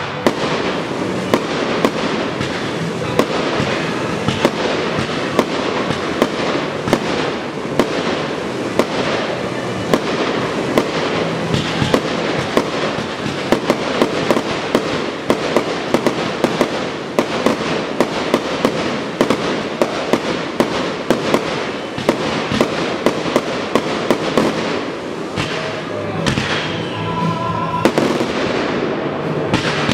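Fireworks display: aerial shells bursting in a dense, continuous barrage, sharp bangs following one another in quick succession over a constant crackle.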